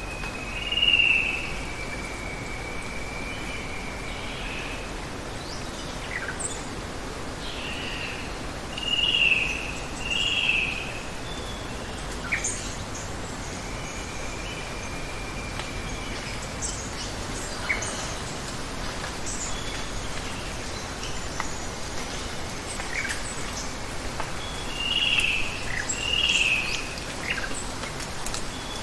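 Steady rush of running water with birds calling over it: pairs of short, loud chirps about a second in, around nine to ten seconds in and near the end, two long even whistles, and scattered brief high chirps.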